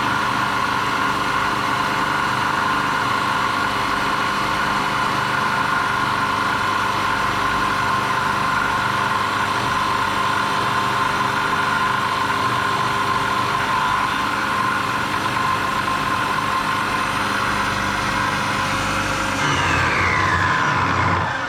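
Milling machine spindle running while a face mill skims one face of an aluminium bar under hand feed: a steady machine whine with the cutting noise. Near the end the pitch falls as the spindle slows down with the cut finished.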